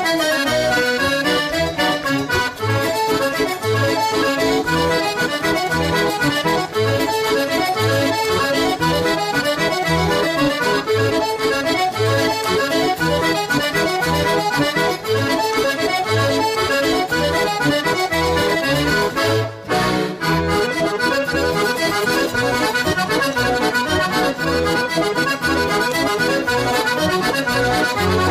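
Accordion-led Portuguese folk dance music, a lively melody over a steady, regular bass beat, with a brief break about two-thirds of the way in.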